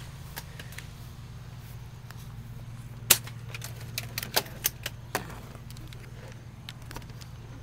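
Airsoft gunfire: a handful of sharp, short cracks of shots and BBs striking, one loud crack about three seconds in, then five or so more in quick succession over the next two seconds.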